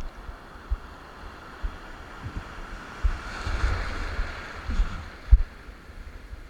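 Sea water rushing, swelling about three seconds in and fading by five, over wind buffeting the microphone in short low thumps.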